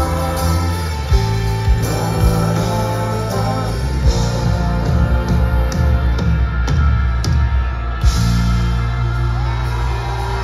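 Live rock band playing with a lead singer.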